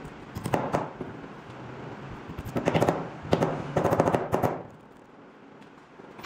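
A hammer tapping rapidly on metal pins set through a wooden knife handle, fixing the handle scales to the tang. The taps come in several quick bursts and stop about two-thirds of the way through.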